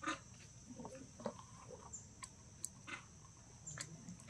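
Faint outdoor ambience: insects keep up a steady high-pitched drone, with a small dipping chirp on it about every second and a half. Scattered short, faint squeaks and ticks sound over it.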